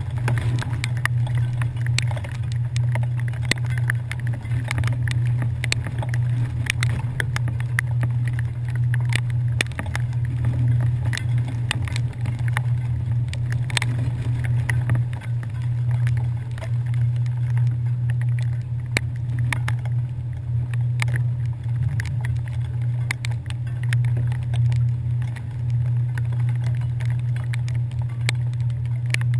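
Steady low drone of a passenger ferry's engines under way, with scattered sharp ticks of rain and spray striking the camera.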